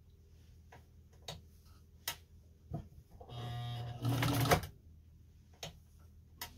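Restored Nelco electric sewing machine run briefly for about a second, a little past the middle, its motor giving a steady hum; a few light clicks come before it.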